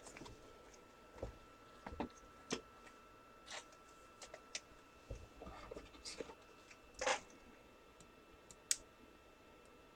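Faint, scattered small clicks and light scrapes, with the strongest about two and a half seconds and seven seconds in, over a faint steady high tone.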